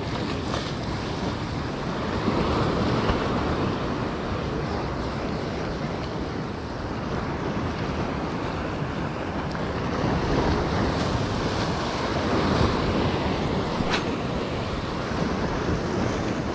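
Sea surf breaking and washing ashore, with wind buffeting the microphone; the rush of the waves swells louder twice.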